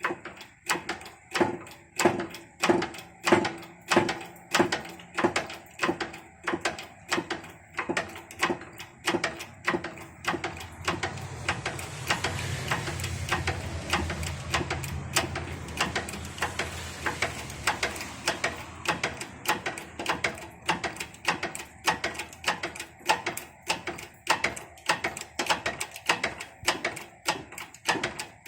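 Hydraulic jack in a shop press being pumped to press a wheel bearing onto an axle shaft: an even run of metallic clicks, about two strokes a second, with a steadier low hum coming in for several seconds midway.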